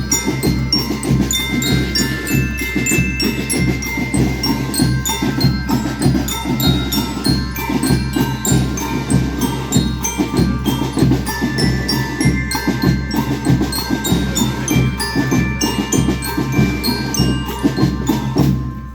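School rhythmic band playing: bell lyres ring out a melody over drums keeping a steady beat of about two strokes a second. The music stops just before the end.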